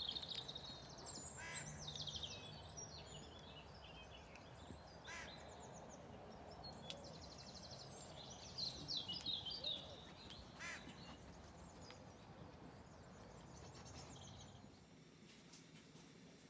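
Small songbirds chirping and trilling, with a few harsh caws from crows, one about every four seconds. The birdsong stops about fifteen seconds in, leaving a faint hiss.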